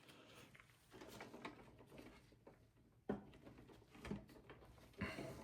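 Near silence with faint small clicks and scrapes of a tiny screw and screwdriver being handled while fitting an M.2 SSD, with a sharper tap about three seconds in and another near the end.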